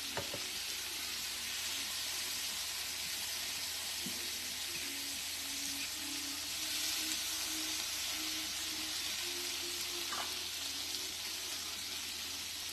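Garlic frying in butter in a hot pan: a steady sizzle.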